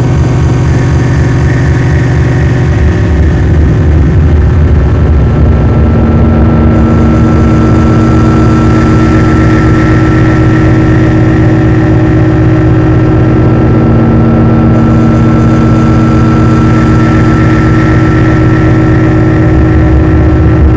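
Dark ambient noise music: a loud, dense electronic drone of several held tones over a grainy, rumbling low end, with a slight shift in the tones about three seconds in.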